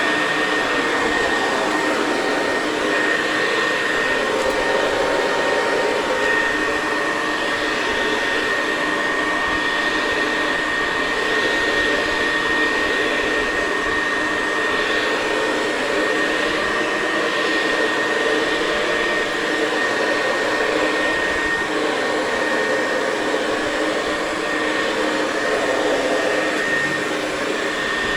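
Hoover Convertible 704 upright vacuum cleaner running steadily on carpet, a high, even whine over the rush of air.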